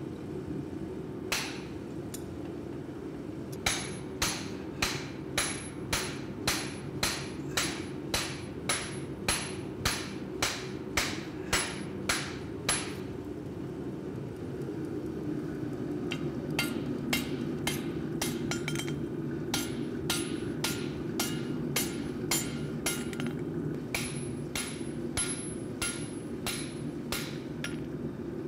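Hand hammer striking a red-hot rail-steel axe head clamped in a vise, with sharp ringing metal blows about two a second in two long runs and a short pause between them. A steady low rumble runs underneath.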